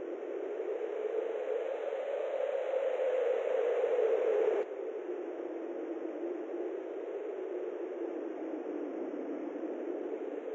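A steady rushing, hiss-like noise with no low rumble, which drops slightly in level and changes character abruptly about four and a half seconds in.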